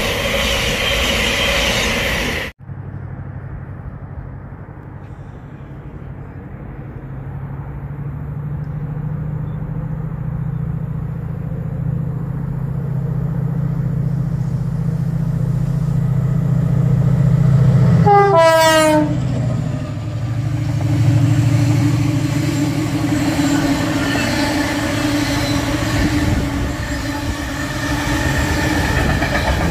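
A passenger train rushing through at speed, cut off abruptly about two and a half seconds in. Then a freight locomotive approaching with a low engine drone that builds, and about eighteen seconds in it sounds its horn, the pitch falling steeply as it passes. After that, a line of open freight wagons rolls past with a steady rumble.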